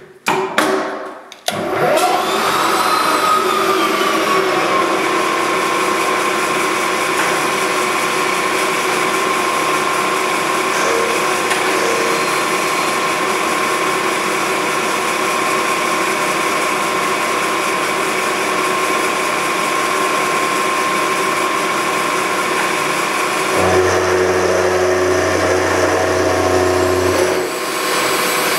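A few clicks and knocks, then the milling machine spindle spins up about a second and a half in and runs steadily with a high whine while the end mill cuts a slot in a small metal part. A lower hum joins for a few seconds near the end.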